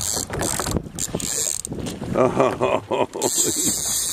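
Fishing reel ratcheting in rapid, uneven clicks as line is worked against a hooked fish, over a steady hiss.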